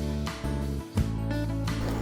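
Background music: strummed acoustic guitar with sustained chords.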